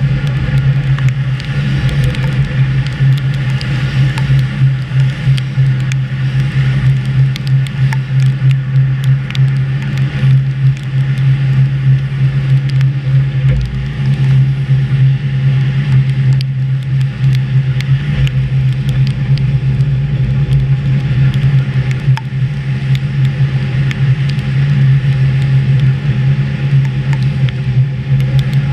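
Budapest HÉV electric suburban train running along the track, heard from the driver's cab: a steady low hum with wheel-on-rail noise and many small scattered clicks.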